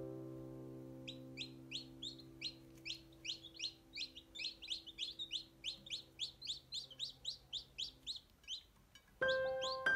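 Newly hatched chicks peeping: a fast, even run of short high peeps, about three or four a second. Under it a held music chord fades away, and chime-like music comes in near the end.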